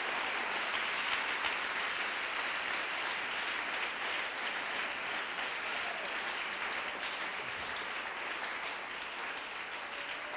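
A congregation applauding steadily, the clapping slowly dying down near the end.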